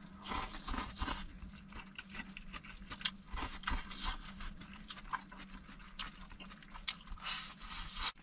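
A person eating close to the microphone: chewing, with irregular small clicks and swishes, over a steady low hum.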